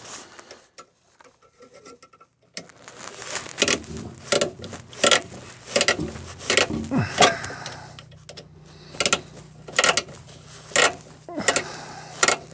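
Repeated sharp clicks and knocks, roughly one a second, from hand work on a fuel filter's line fitting. They start about two and a half seconds in, after a short quiet stretch.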